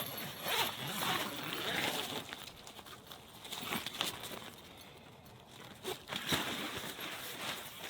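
Irregular rustling and crinkling, with a few short sharp clicks.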